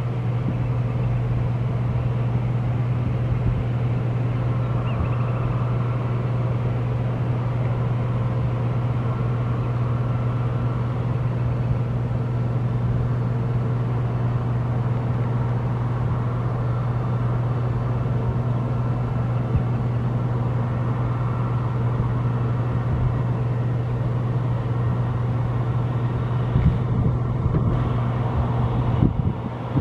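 Steady low roar of an Airbus A319 airliner's jet engines on final approach, mixed with wind on the microphone, with a few louder gusts near the end.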